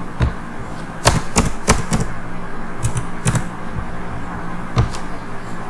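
Computer keyboard keystrokes: about ten sharp clicks at irregular intervals as code is typed, over a steady low hum.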